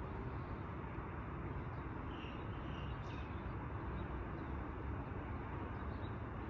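Steady outdoor background noise with no clear single source, and a few faint high chirps a little over two seconds in.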